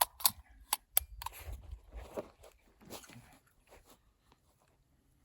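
A series of sharp clicks and knocks with some rustling, dying away after about four seconds.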